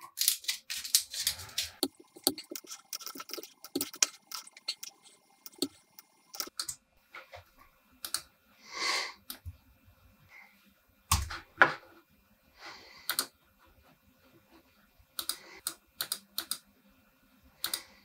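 Computer keyboard and mouse clicking in irregular runs, with a short rustle about halfway through.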